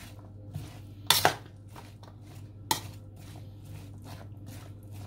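Metal spoon clinking and scraping against a metal mixing bowl while stirring a chopped potato and chickpea chaat mix. It makes many light clicks, with two louder clinks, one about a second in and one near the middle.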